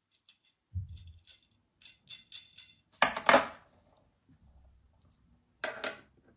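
Metal hardware on a DIY press clinking and clanking as it is handled: a dull knock, a run of light metallic ticks, then a loud clank about three seconds in and another near the end.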